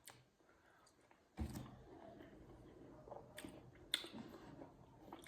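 Faint chewing of an orange, with a few soft mouth clicks and a dull thump about a second and a half in.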